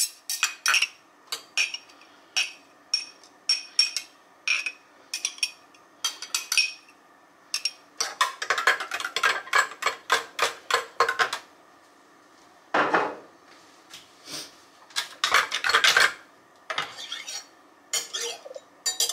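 A metal knife clinking and scraping against glass as minced garlic is scraped off a small glass bowl and stirred into a glass jar of tomato sauce. Single sharp clinks come about twice a second at first, then longer runs of rapid scraping and clinking.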